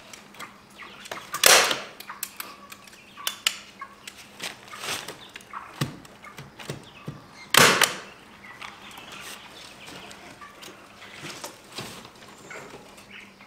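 Chicken wire being unrolled and fastened over a wooden pen: light rattling and clinking of the wire mesh, with two loud sharp snaps, one about a second and a half in and one about seven and a half seconds in.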